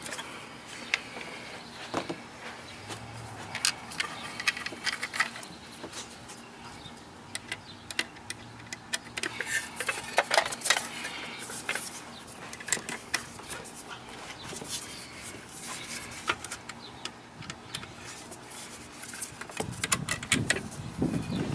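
Scattered light clicks and metallic clinks of hand-work on an electrical outlet: the receptacle, its screws and a screwdriver being handled as it goes back into the box.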